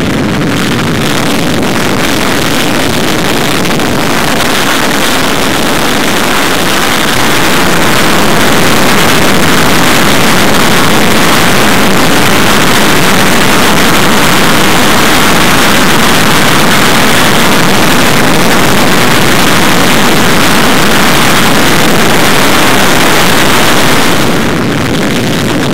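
Rolls-Royce EJ200 turbofan jet engine running at high power on a static test, a steady, very loud rush of jet noise. It grows louder about eight seconds in and eases back near the end.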